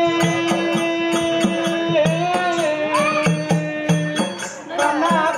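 Live folk-drama music: a long held note that drops a step about two seconds in, with smaller melodic glides above it, over a steady drum beat and quick, even metallic ticks of hand percussion.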